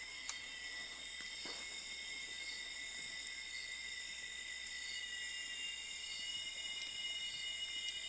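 Steady chorus of insects, several high continuous trills held at different pitches, one of them pulsing about once a second. Another trill joins about five seconds in.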